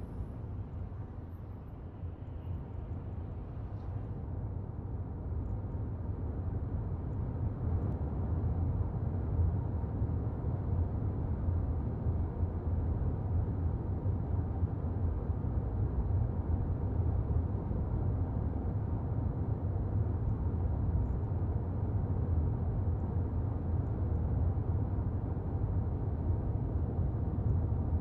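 A car driving: a steady low road and engine rumble that builds over the first several seconds and then holds even.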